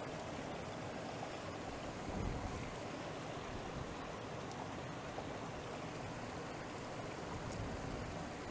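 A river flowing over stones makes a steady, even rush of water, with a brief low bump about two seconds in.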